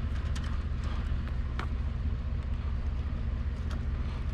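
A vehicle engine idling steadily, with a few light clicks near the start and again about a second and a half in.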